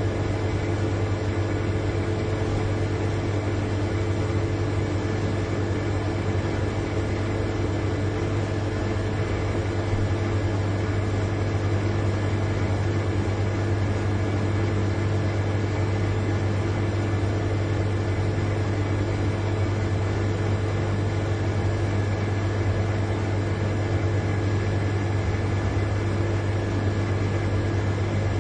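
Large refrigerator's compressor running with a steady low hum and a faint higher whine over a light hiss.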